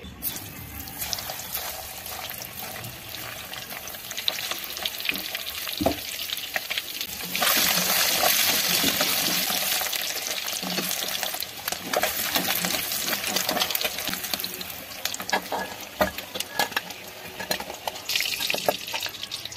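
Hot oil sizzling in a kadhai. About seven and a half seconds in, peeled boiled eggs go into the oil and the sizzling turns suddenly louder as they fry, with scattered knocks throughout.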